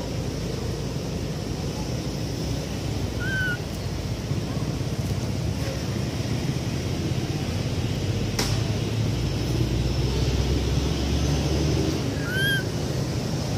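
Steady outdoor background noise with a low rumble, broken by two brief chirping calls, one about three seconds in and one near the end, and a single sharp click about eight seconds in.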